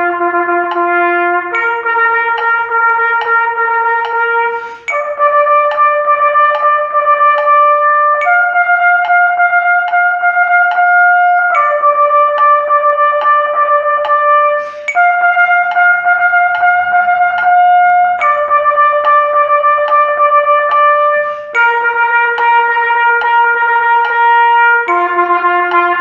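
Trumpet playing a tongued 12/8 rhythm exercise on the open natural tones without valves. Each pitch is repeated in quick groups for a few seconds before moving to the next, stepping up through the notes of the harmonic series and back down to the low note near the end.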